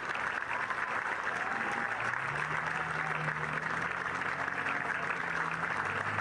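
Tennis crowd applauding steadily at the end of the match.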